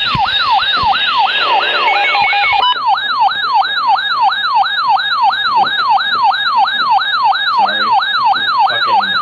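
Electronic emergency-alert siren for a flash flood warning: a rapid yelp whose pitch falls in each cycle, repeating about three times a second without a break. During the first few seconds a stepped electronic beeping is layered over it.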